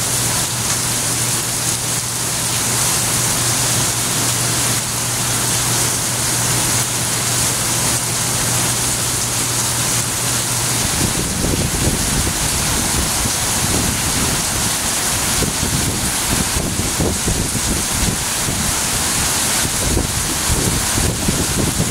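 Heavy rain falling steadily on trees and surfaces. A low steady hum stops about halfway through. After that, gusts of wind buffet the microphone with irregular low rumbles.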